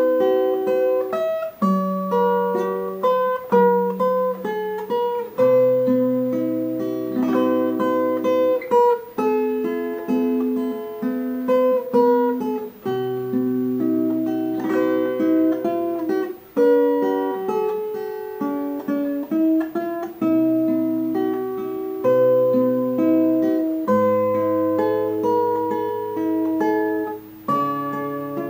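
Background music: acoustic guitar playing picked and strummed chords, with bass notes changing every couple of seconds.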